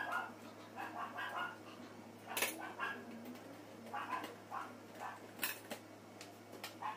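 A dog barking in short repeated calls, with two sharp clicks about two and a half and five and a half seconds in, over a steady low hum.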